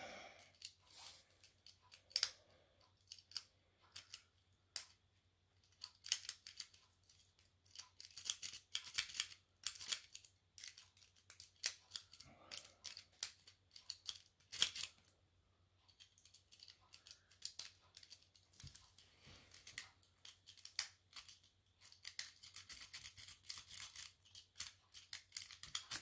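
A half-diamond lock pick and tension wrench working the five-pin cylinder of a Burg Wachter Sapphire 121 CS 50 laminated padlock: faint, irregular metallic clicks and scrapes as the pick moves over the pins. A quick, dense run of clicks comes near the end, as the picking turns to raking.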